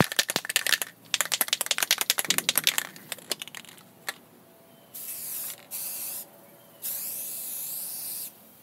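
An aerosol spray-paint can shaken hard, its mixing ball rattling rapidly for a few seconds, followed by three bursts of spray hissing from the nozzle, the last the longest.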